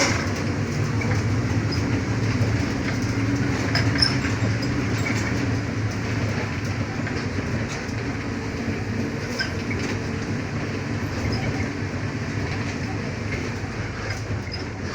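Mercedes-Benz OF-1418 bus running, its front-mounted six-cylinder diesel engine droning steadily with scattered body rattles and clicks, gradually getting quieter in the second half.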